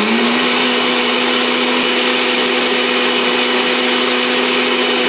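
Blender running at a steady pitch, loud, blending guinea grass and basil pulp with fresh water for a second pass.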